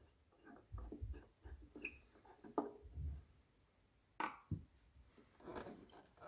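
Faint, irregular clicks, taps and rustling of hands handling and cleaning a cassette boombox, with a sharper knock about four seconds in.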